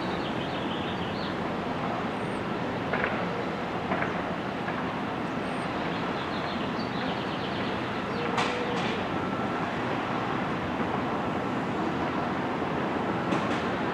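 Train rolling along its track: a steady rumble and rattle, with a few sharp clicks and knocks.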